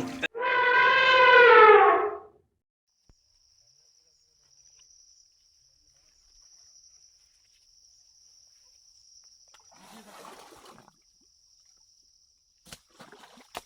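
A held musical note that bends downward and stops about two seconds in. It is followed by a faint, steady, high thin whine, with a few clicks near the end.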